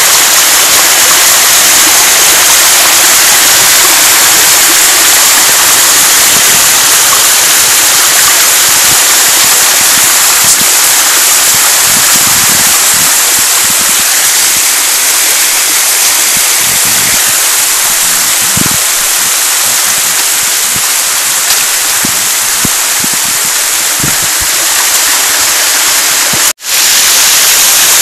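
Small waterfall cascading over rock ledges, a loud, steady rush of falling water close by, broken by a momentary dropout near the end.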